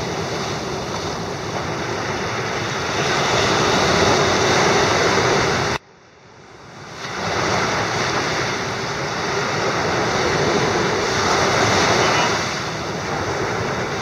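Small ocean waves breaking and washing up a sandy beach: a steady rush of surf. About six seconds in, the sound cuts out abruptly and fades back in over about a second.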